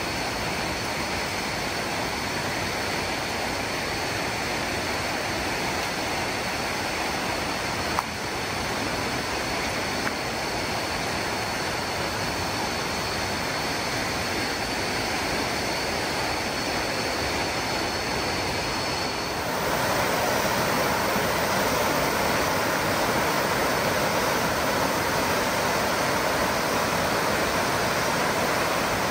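Steady rushing of a waterfall, with a faint high whine over it for the first two thirds; the rush gets louder and fuller about twenty seconds in. A single brief knock about eight seconds in.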